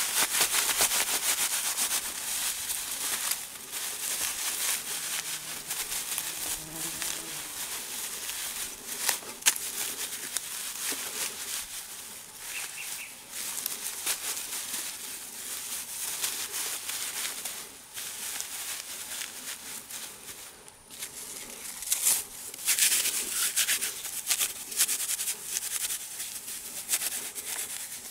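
Dry cottonwood inner-bark fibres rustling and crackling close up as hands rub, twist and tear them into a bird's-nest tinder bundle, with a few sharper snaps.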